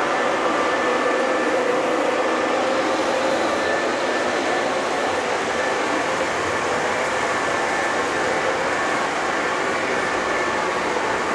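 O gauge model diesel locomotive running on the layout's track: a steady rolling rumble of wheels on rail with a faint steady hum, unchanging throughout.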